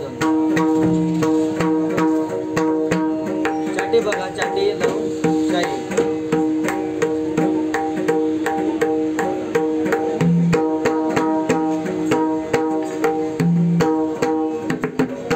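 Newly repaired pakhawaj played with quick finger strokes on its treble head. The strokes come in a fast, dense rhythm, each ringing at a clear pitch.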